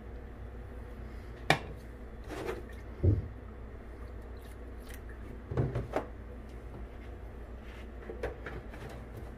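A few separate knocks and clatters of a pan being handled on a glass-top electric stove, over a steady low hum: a sharp click, a low thump, then a small cluster of clatters.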